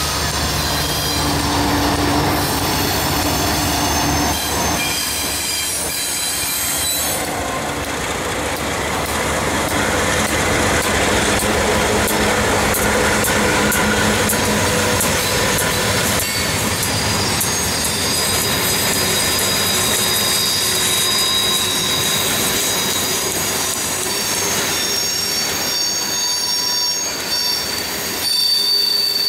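A freight train passing close by. Its diesel locomotives (CP Rail and Norfolk Southern units) run by first, then the cars roll past, with a run of wheel clicks over the rail joints and high, steady wheel squeal toward the end.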